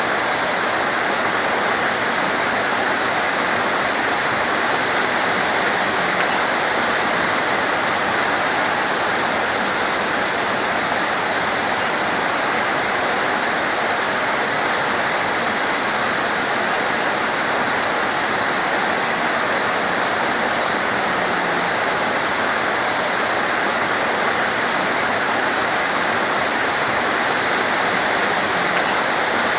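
Torrential rain pouring down steadily as a dense, even hiss, with one brief tick about 18 seconds in.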